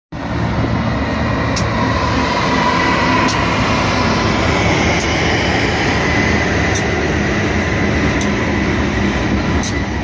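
Freight train rolling past close by: a BNSF diesel locomotive going by, then boxcar wheels on the rails, with a steady heavy rumble. A sharp click comes about every second and a half, over a faint high whine.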